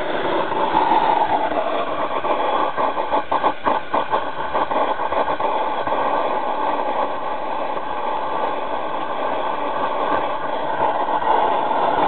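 Homemade Babington-ball waste oil burner firing in a boiler: a steady roar of the compressed-air-atomised oil flame, with a brief flutter about three to five seconds in.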